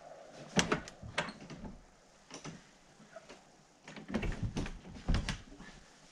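An old wooden door, jammed in its frame, is being worked from inside: its latch handle clicks and the door knocks and thuds against the frame in a string of sharp knocks, with a quieter stretch in the middle and a cluster of knocks near the end. The door is swollen and stuck and does not open.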